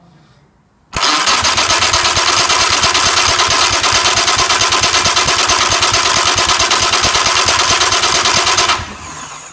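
VW Polo 1.4 car starter motor, adapted to a 1996 Yamaha 20 hp two-stroke outboard, cranking the engine through the flywheel ring gear with a loud whirring and rapid even pulsing. It cuts in suddenly about a second in, runs for about eight seconds, then cuts out and spins down briefly near the end.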